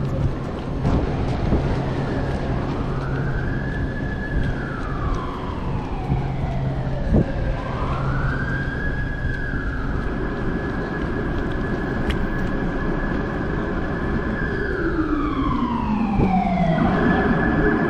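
Emergency vehicle siren wailing, rising and falling slowly in pitch and holding at the top between sweeps. Near the end it falls in one long slide, then jumps back to a steady high tone. Street traffic noise runs underneath.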